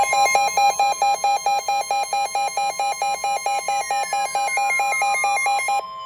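Electronic alert tones: a steady high tone under a lower tone beeping about five times a second, with a tone gliding down in pitch over the last few seconds, all cutting off abruptly near the end.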